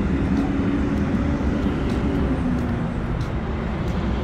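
Steady rumble of motor-vehicle traffic, with a low engine hum that slowly falls in pitch.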